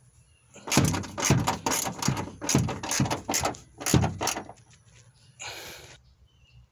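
Ratchet wrench with a 12 mm socket clicking in a quick run of sharp clicks, about four to five a second, as it loosens a nut on the hybrid battery pack's mounting rail. A short rasp follows about a second later.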